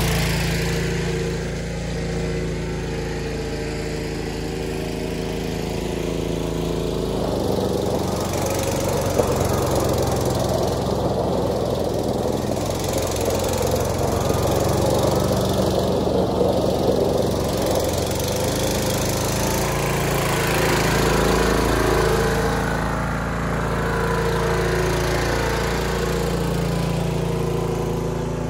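1978 John Deere 316 garden tractor's freshly rebuilt Onan twin-cylinder engine running steadily as the tractor is driven across the pad. Its note shifts with throttle and load, with a brief rise in pitch near the end.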